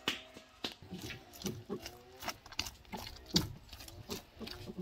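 Hands kneading soft flour halva dough in an enamel bowl: irregular squelching presses, about three a second, with one sharper squelch a little past the middle.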